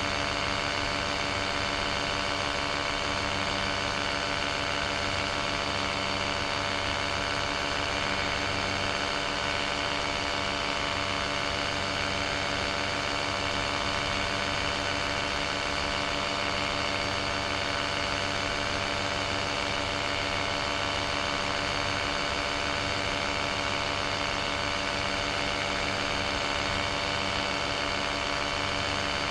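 Paramotor engine and propeller running steadily in flight, an even drone that holds at one pitch throughout.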